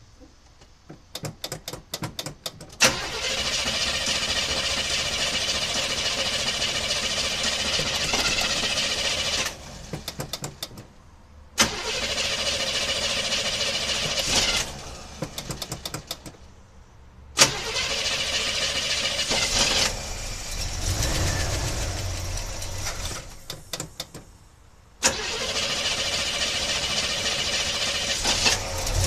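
1976 Chevy Blazer engine cranked with the starter until it catches about three seconds in. It runs steadily for several seconds, cuts out with a few sputtering ticks, and is started again, four starts in all. The engine is being run to track down a horrible noise.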